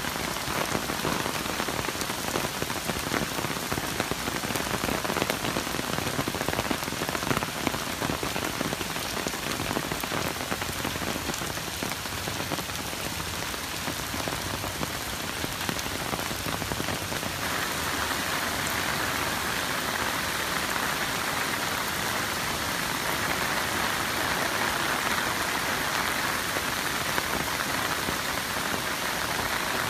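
Heavy typhoon rain falling on a wet, puddled road and pavement: a dense, steady hiss. A little past halfway the hiss turns brighter and higher.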